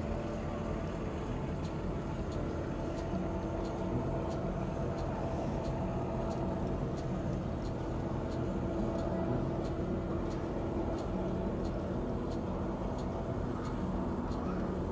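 HO scale model freight cars rolling past, their metal wheels clicking rhythmically over rail joints about twice a second over a steady hum.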